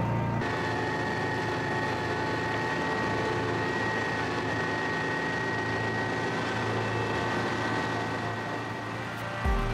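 Engine of a small tracked carrier hauling a load of lumber, running steadily with an even whine as it drives along, heard from the operator's seat.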